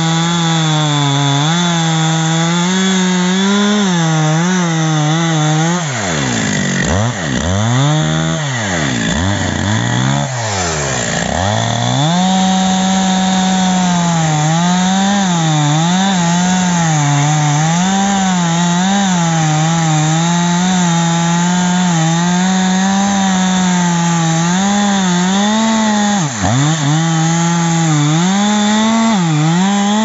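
Two-stroke chainsaw at full throttle cutting into a thick birch trunk near its base, the engine speed wavering under the load of the cut. Between about six and twelve seconds in, the engine drops toward idle and revs back up several times, then dips once more briefly near the end.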